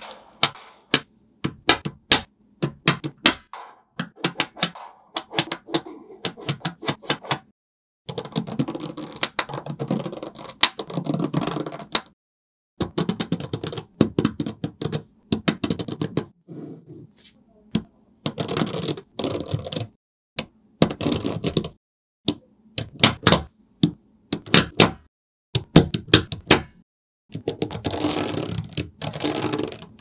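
Small metal magnetic balls clicking and clacking as rows and squares of them snap together and onto stacked layers. Sharp single clicks alternate with several stretches of rapid clattering.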